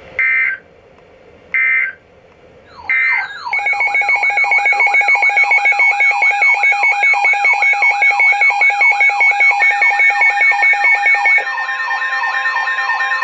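Emergency Alert System tones on a Midland WR-300 NOAA weather radio. First come three short digital data screeches about a second and a half apart: the SAME header bursts that encode the incoming alert. Then the radio's alarm siren warbles up and down about three times a second over steady beeping tones, announcing a severe thunderstorm warning, and about 11 seconds in a steady alert tone joins.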